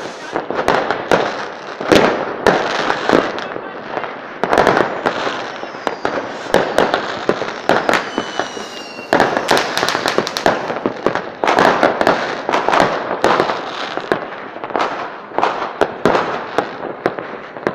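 Fireworks going off in rapid succession: a dense run of sharp bangs and crackling with no gaps, and a brief falling whistle about eight seconds in.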